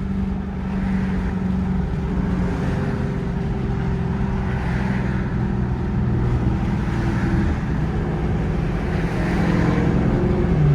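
Dodge Charger's Hemi V8 running under way, its steady note shifting pitch a few times, with road and wind noise around it.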